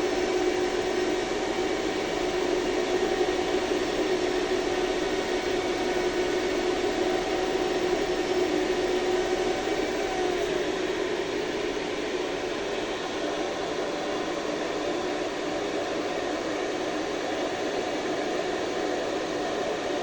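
HF-150 ventilation fan running: a steady rush of air over a hum of a couple of steady tones. About halfway through the hum drops in pitch and the sound gets a little quieter, as the fan slows to a lower speed.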